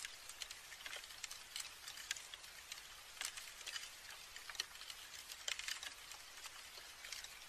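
Faint, irregular crackling from a dead tree stump, close-miked: a dense scatter of tiny dry ticks and clicks, several a second, with a few louder ones around three and five and a half seconds in.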